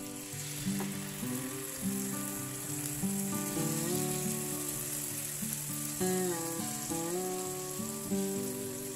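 Marinated chicken pieces sizzling in hot oil in a frying pan, the hiss starting as the meat hits the oil and running on steadily while it is stirred with a spatula.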